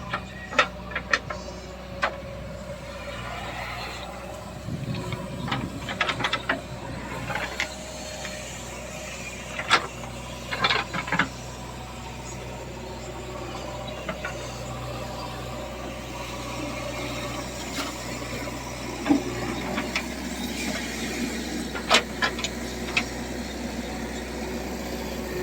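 Diesel engine of heavy farm or earth-moving machinery running steadily, with sharp metallic knocks and clanks now and then.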